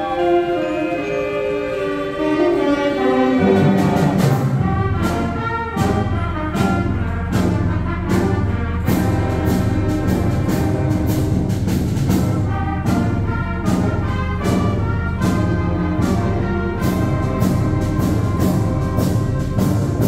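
Wind band playing: sustained woodwind and brass chords at first, then about three and a half seconds in the low brass comes in and the full band plays loudly, marked by sharp, regular percussion strikes.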